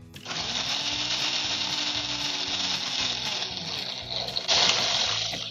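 Ninja Ultima countertop blender's motor starting up and running with a high whine, its pitch rising slightly, louder about four and a half seconds in, then cutting out suddenly at the end as the blender trips the power, the fault that keeps popping the GFCI outlets.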